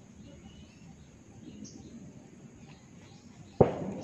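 A single sharp, loud crack near the end: a person's neck joints popping as the neck is cracked by hand. Faint bird chirps underneath.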